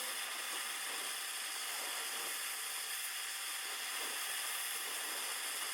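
Steady high hiss with no other sounds: the recording's own background noise.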